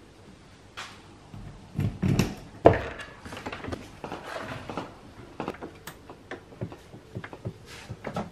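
Travel trailer entry door being unlatched and swung open, with a loud clunk a little over two seconds in, then scattered knocks and steps as someone climbs the entry steps into the camper.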